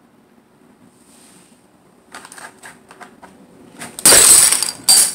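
Light clicks and taps of small plastic toy pieces being handled on a table. Then, about four seconds in, a child gives a loud, raspy, dinosaur-style roar, harsh enough to distort, in two blasts.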